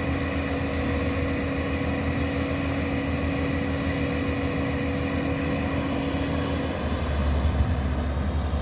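A vehicle engine running at a steady speed with road noise, heard from on board. Its note changes about seven seconds in.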